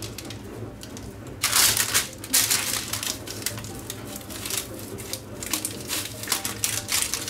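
Crisp crust of a freshly baked sesame-topped loaf crackling and crunching as it is torn apart by hand. There is a loud burst of crackling about one and a half seconds in, then smaller crackles.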